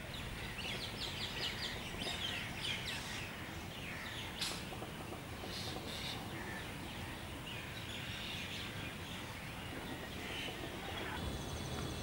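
High-pitched chirping calls: a fast run of evenly spaced chirps about a second in, then scattered short chirps and trills, over steady low background noise.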